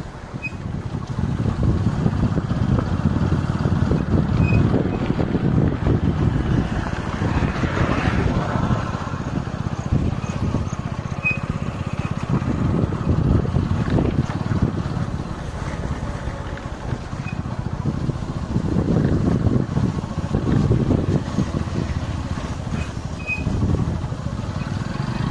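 Motorcycle riding along a road: engine and road noise with wind rumbling on the microphone, rising and falling with no pauses.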